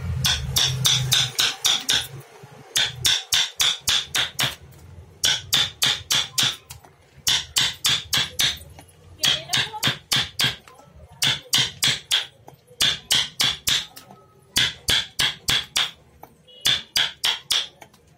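A hammer tapping in quick runs of about five to ten sharp strikes, roughly four or five a second, with short pauses between the runs.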